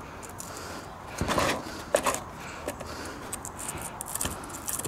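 Light clicks and scraping of a chainsaw's chain and bar being handled: the chain is pulled up off the bar by hand to check its tension. There is a short scraping rustle about a second in and scattered small ticks after it.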